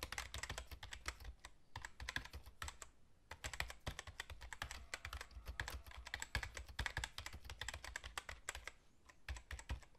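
Faint typing sound: rapid, irregular keyboard key clicks, pausing briefly a few times.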